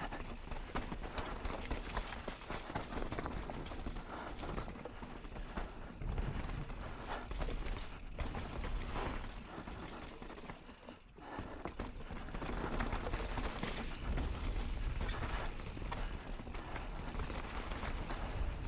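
Mountain bike descending a rough dirt and cobblestone trail: tyres rumbling over dirt and rocks with constant clattering knocks from the bike, easing off briefly about eleven seconds in.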